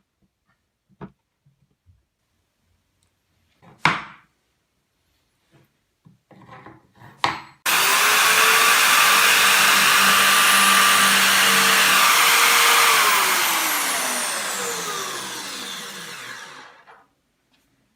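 A few knocks and clicks, then an electric power-tool motor switches on abruptly at full speed about eight seconds in. It runs steadily for about five seconds, then coasts down with a falling pitch and fades out over about four seconds.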